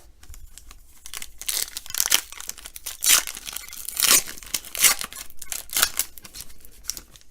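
Wrapper of a Panini Status basketball card pack being torn open and crinkled, a run of irregular ripping and crackling sounds.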